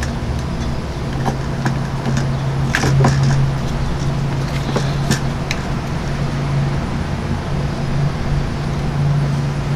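A steady low hum in the background, with scattered light clicks and taps as hands handle the plastic recoil starter housing and pulley of a Stihl gas blower while threading new starter cord, most of them in the first half.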